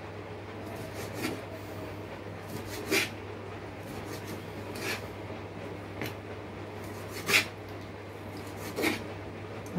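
Large kitchen knife slicing partly frozen beef into thin strips on a plastic cutting board. The blade rasps as it draws through the meat and knocks on the board about six times, every second or two, over a steady low hum.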